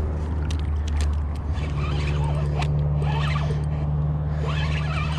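Spinning fishing reel worked while fighting a hooked fish, its mechanism whirring and clicking, over a steady low hum that steps up in pitch about a second and a half in.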